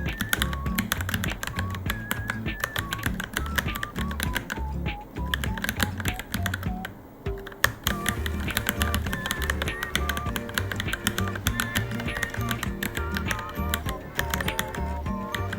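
Fast, continuous typing on a Varmilo Minilo low-profile mechanical keyboard, keys clicking in quick succession with a brief slowdown about six seconds in. Background music with a steady bass beat and a light melody plays throughout.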